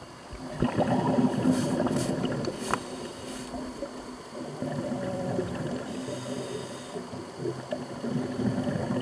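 Underwater sound: rushing, bubbling noise from a scuba diver's exhaled air bubbles over a steady low hum, the bubbling heaviest in the first few seconds.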